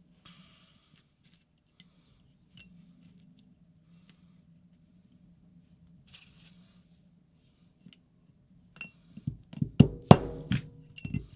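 Metal tools and parts being handled on a workbench: mostly quiet with a faint low hum, then a quick run of sharp metallic clicks and knocks near the end.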